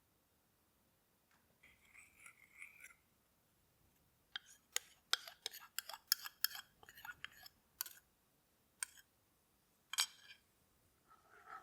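Faint, light clicks and clinks of kitchen utensils against dishes: about a dozen sharp taps, irregularly spaced over several seconds, with a softer sound just before them.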